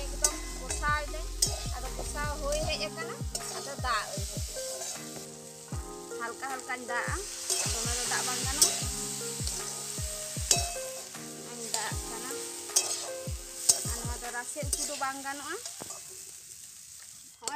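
Mahua fruit curry sizzling as it fries in a metal wok, with a metal spatula stirring and scraping through it in short strokes.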